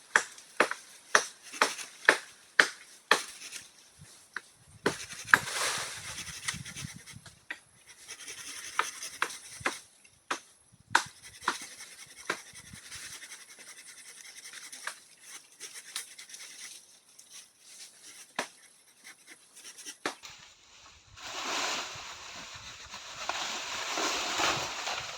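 A tool striking wood, with sharp knocks about twice a second for the first few seconds, then scattered knocks and stretches of scraping and rustling. A longer rough, rushing scrape comes near the end.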